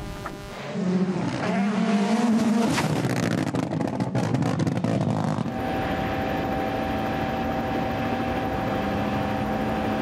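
In-car sound of a rally car going off the road into undergrowth: the engine revs up and down while a rapid clatter of branches and foliage strikes the bodywork and windscreen. About halfway through it cuts abruptly to a steady, unchanging engine-like drone with a thin high whine.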